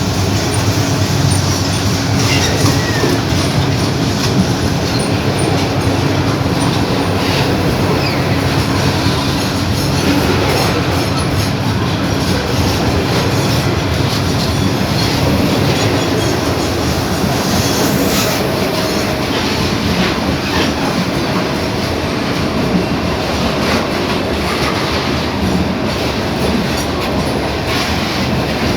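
Loaded freight train of gondola wagons and boxcars rolling steadily past, its wheels clattering over the rail joints, with a brief high wheel squeal about two-thirds of the way through.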